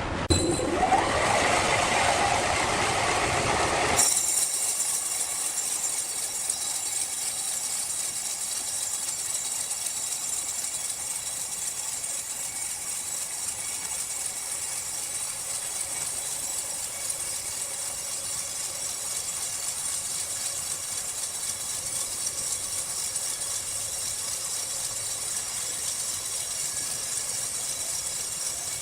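Sawmill machinery running, louder for the first four seconds, then an abrupt change to a steady hiss with several high, steady whining tones.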